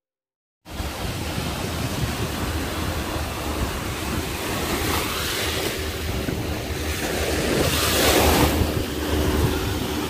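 Shallow ocean surf washing in over sand, with wind rumbling on the microphone. It starts about a second in and swells louder twice, about halfway through and again near the end.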